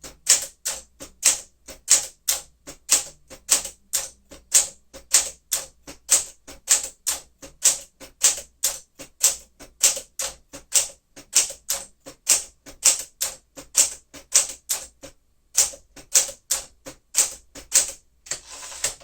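1959 Smith-Corona Sterling manual typewriter typing at a steady pace: sharp key strikes, about three a second, with a short pause about three-quarters of the way through and a brief rasping sound near the end.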